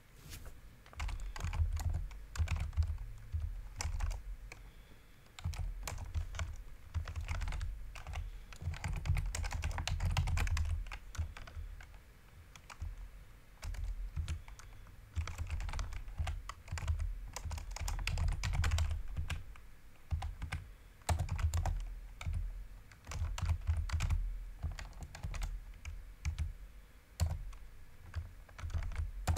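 Typing on a computer keyboard: rapid runs of keystrokes lasting a few seconds each, broken by short pauses, with a dull low thump under the key presses.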